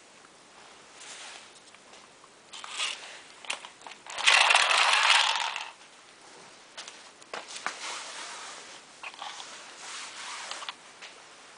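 Wind-up clockwork toy snail being handled and running on a wooden floor: scattered clicks and scrapes, with one loud noisy scraping burst of about a second and a half a little over a third of the way in.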